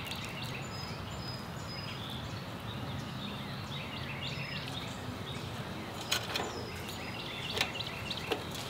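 Outdoor ambience of many small birds chirping and calling over a steady low background noise, with a few sharp clicks in the second half.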